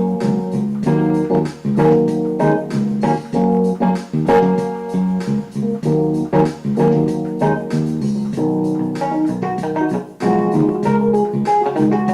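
Instrumental background music: keyboard with organ and piano tones playing a melody over held chords.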